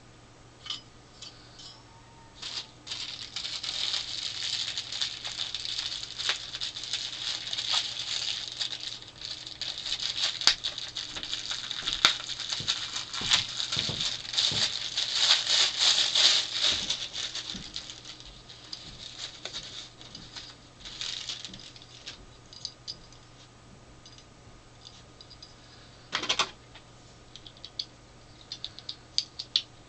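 Crinkling and rustling of a small plastic packaging bag being handled and opened, full of small crackles, dying down about two-thirds of the way through into scattered light clicks of small plastic parts, with one short louder rustle near the end.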